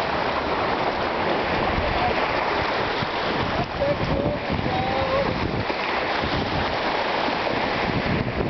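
Steady rush of sea surf washing over rocks, mixed with wind buffeting the microphone, with a few faint short pitched sounds near the middle.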